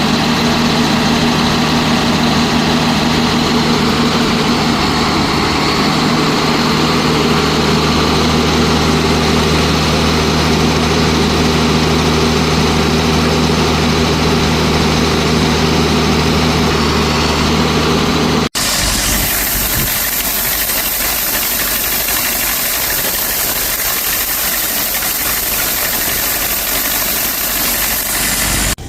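Tractor engine running steadily at a constant speed, heard from inside the cab while pulling the grain cart during harvest. About two-thirds of the way through the audio cuts to a different, hissier steady machine noise.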